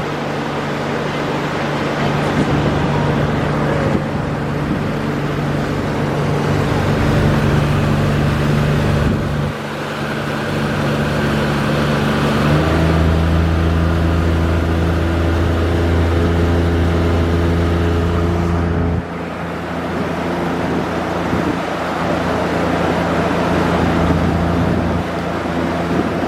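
Motorboat engine running under way at speed, with steady wind and water rush. The engine note steps abruptly to a different pitch a few times, around a third and two-thirds of the way through.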